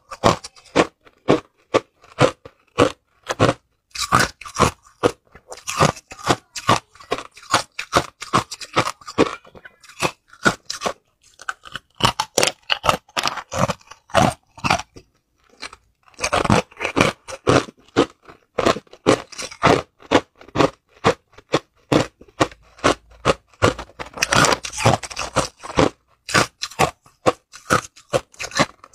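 Hard ice cubes being bitten and chewed close to the microphone: a rapid string of sharp, crisp crunches, several a second, with short lulls between mouthfuls.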